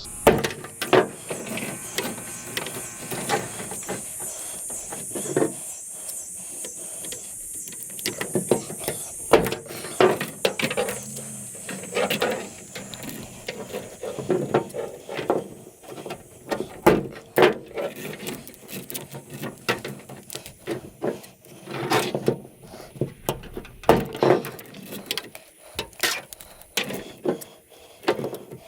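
Hand snips cutting through aluminum-armored cable and the wire inside: irregular metallic snips, crunches and clicks, with the cable being bent and pulled apart between cuts.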